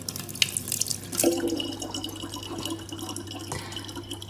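Water running from a tap and splashing unevenly, with many small drips and spatters.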